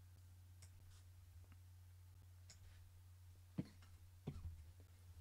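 Near silence over a steady low electrical hum, with a few faint clicks and a couple of louder knocks about three and a half to four and a half seconds in.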